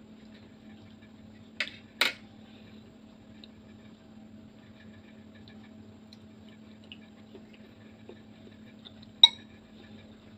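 Metal cutlery clinking against a ceramic bowl: two quick clinks about two seconds in and one louder, ringing clink near the end, over a steady low hum.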